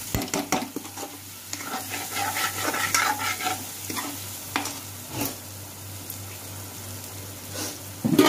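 A perforated steel spatula stirring and scraping boiled eggs through thick masala frying and sizzling in a metal kadhai, with several sharp knocks of the spatula against the pan.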